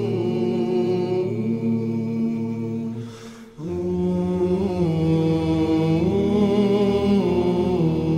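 Kazakh nasheed vocals held as a wordless chanted drone on long sustained notes, with a short break about three and a half seconds in and small pitch slides after it.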